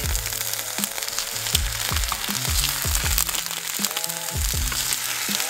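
Cabbage wedges sizzling in oil in a hot frying pan, a steady hiss, under background music with a deep, thumping bass beat.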